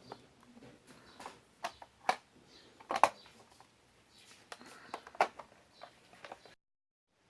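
Irregular light clicks and taps of hands handling and working on the plastic parts of an LED emergency light, the sharpest about three seconds in. The sound cuts off suddenly near the end.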